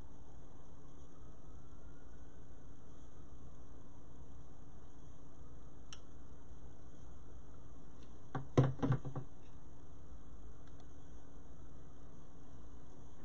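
Steady electrical hum with a high hiss, the background noise of the recording setup. About two-thirds of the way through, a brief cluster of a few short pulses stands out.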